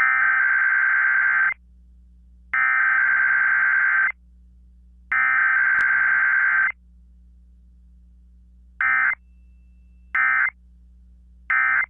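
Emergency Alert System digital data tones on a radio broadcast, a shrill modem-like warble. Three long bursts of about a second and a half each come first, then three short bursts roughly a second and a half apart.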